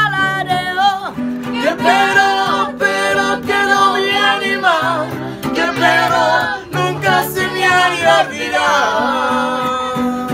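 Acoustic guitar strumming a Mexican-style song accompaniment, while a voice sings the melody between verses without words, its pitch wavering.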